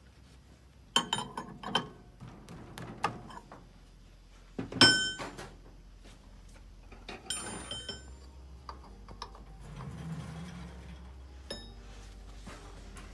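Metal clanks and clinks from setting up a rusty brake drum on a brake lathe, a few sharp knocks with the loudest about five seconds in, over a steady low hum.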